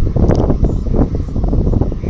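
Wind buffeting the microphone: a loud, irregular low rumble with uneven gusty flutters.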